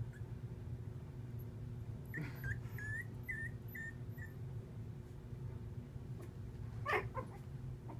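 Miniature American Eskimo puppy squeaking: a run of about six short, high whimpers over a couple of seconds, then one louder yelp about seven seconds in.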